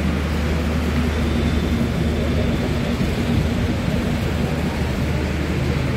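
Steady low drone of an idling train engine, an even hum with a constant hiss over it.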